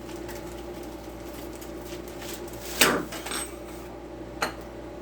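Handling of tools and parts on a work surface: one sharp knock of hard objects about three seconds in and a lighter click later, over a steady low hum.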